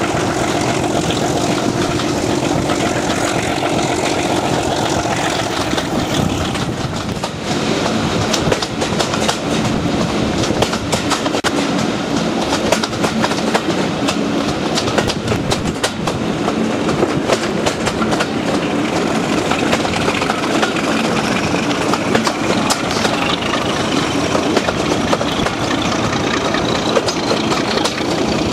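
Class 37/9 diesel locomotive 37906, with its Ruston engine, hauling a train under power, heard from a carriage just behind it. The engine runs steadily over wheels clattering on the rail joints, and a high whine climbs in pitch over the last several seconds.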